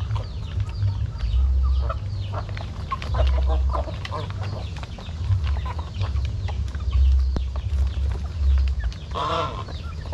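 A flock of chickens clucking while they feed, with many quick sharp taps through it and a louder squawk about a second before the end.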